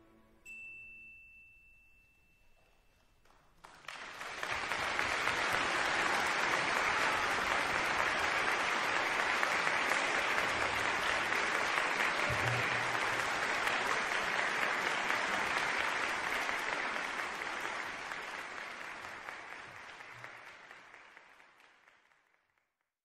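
A single high ringing note sounds about half a second in and lasts about three seconds as the orchestra's last chord dies away. Then a concert audience breaks into applause about four seconds in, which fades out near the end.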